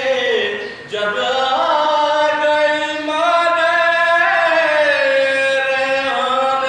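A man's solo voice chanting a nauha, a Shia lament for Aon and Mohammad, unaccompanied, in long held notes that slide from one pitch to the next, with a short break for breath about a second in.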